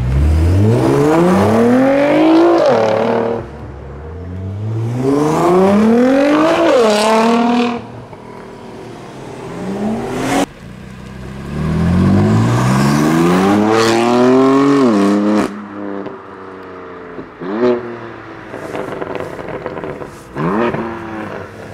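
Nissan GT-Rs' twin-turbo V6 engines accelerating hard away, pitch climbing steeply through each gear and dropping at the shifts, three long pulls in all. About ten seconds in there is a single sharp crack, and near the end come shorter bursts of revving.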